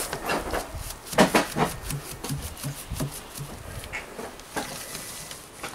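Paintbrush scrubbing paint onto rough-sawn wooden shed boards: a quick run of short, scratchy strokes, a few a second.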